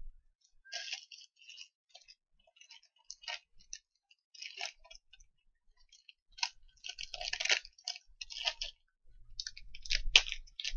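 Irregular light clicks and rustles of small items being handled, growing busier in the last few seconds, with one sharper click near the end.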